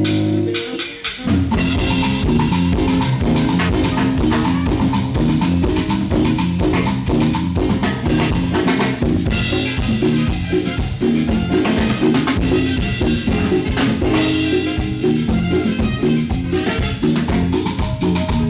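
Live band music with a drum kit and bass in a steady dance rhythm, which starts about a second in after a held note.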